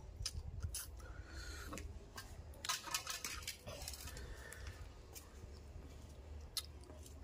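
Close-up eating sounds: chewing, lip smacks and sharp wet clicks of a mouth eating fish and rice by hand, with a denser burst of crackly clicks about three seconds in as fingers pick at the fish on a steel plate. A low steady rumble runs underneath.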